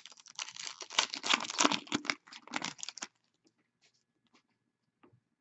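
A trading card pack wrapper being handled: crinkling and tearing for about three seconds, then a few faint ticks.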